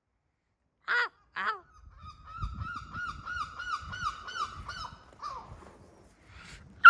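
Seagull calling: two loud calls, then a long run of repeated yelping notes about three a second, the gull's laughing long call, ending with a loud falling call.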